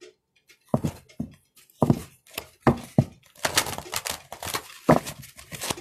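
A deck of oracle cards being shuffled by hand: a series of sharp slaps and taps of the cards, then a dense papery rustle from about three and a half seconds in, and one more slap near the end.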